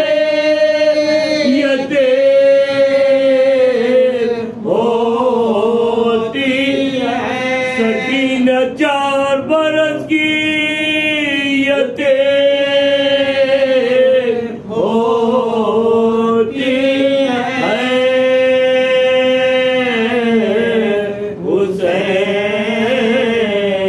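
Men chanting an unaccompanied Muharram lament, one lead voice with others joining. It moves in long, held, drawn-out phrases with short breaths between them.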